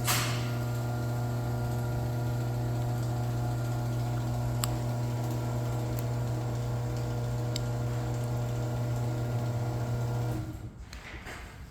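Chamberlain chain-drive garage door opener running with the trolley disengaged from the door: a steady electric motor hum with the chain running, with a few faint clicks, cutting off suddenly about ten and a half seconds in as the run ends.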